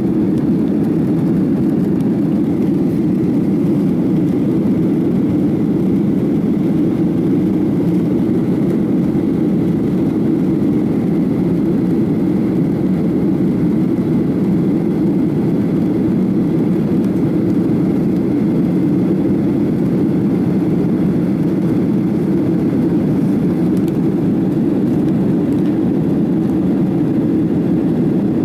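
Steady roar of jet engines and rushing air heard inside the cabin of a Lion Air Boeing 737 climbing after takeoff, a deep, even rumble that does not change.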